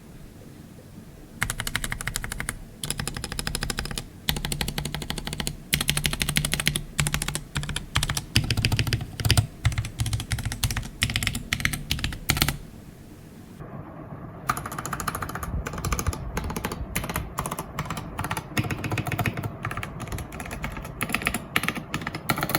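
Fast typing on a budget computer keyboard: dense runs of key clicks starting about a second and a half in, a pause of about two seconds just past halfway, then typing again.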